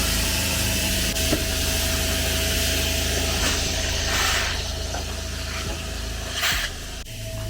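Onan diesel generator running steadily: a low, even hum with a high hiss over it.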